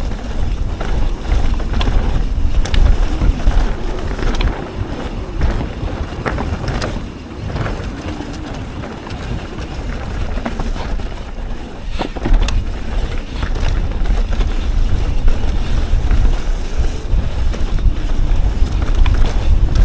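Mountain bike riding fast down a dirt trail: wind buffeting the microphone with a heavy rumble, tyres on dirt, and the bike knocking and rattling over bumps, with a sharp knock about twelve seconds in.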